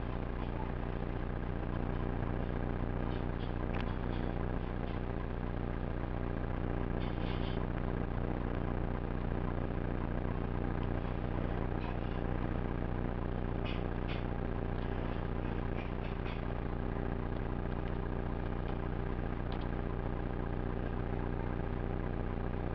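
A steady mechanical hum made of several even tones, with a few faint, short clicks scattered through it.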